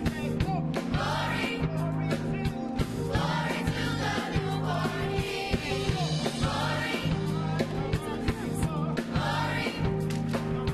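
A choir singing over recorded backing music that has a steady beat and bass line.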